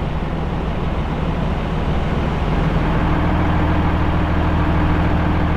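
Vehicle engine and road noise heard from inside the cab while driving. A steady low engine hum grows a little stronger about two and a half seconds in.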